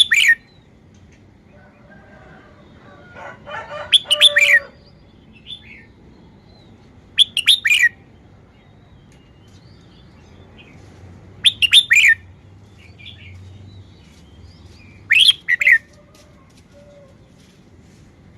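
Red-whiskered bulbul singing in short, quick whistled phrases, five of them at intervals of about four seconds. A lower, longer call sounds beneath the second phrase.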